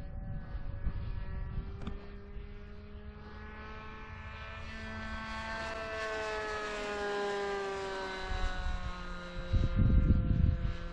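Seagull Boomerang RC trainer plane's engine and propeller droning in flight, growing louder and shifting in pitch as it passes, then easing off. Gusts of wind rumble on the microphone near the start and again near the end.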